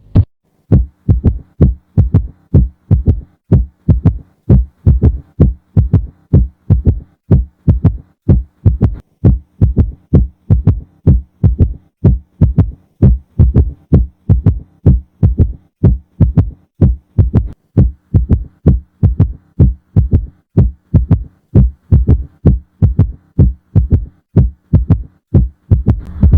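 Recorded heart sounds: a steady, fast rhythm of short, low thuds, the repeating beats of a heart as heard on auscultation.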